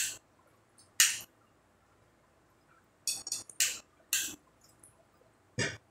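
Mealtime eating sounds: about six short, sharp scrapes and clicks of cutlery and plates, with quiet between them.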